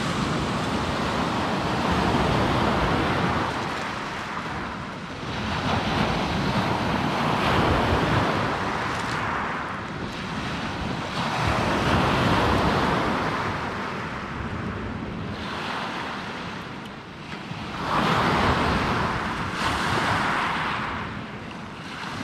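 Small lake waves breaking and washing up a pebble beach, the surf swelling and fading every few seconds.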